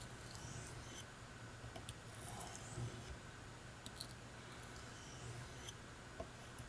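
Knife blade being honed on a hard Arkansas oilstone: a few faint, slow scraping strokes about two seconds apart, with light clicks of the blade on the stone.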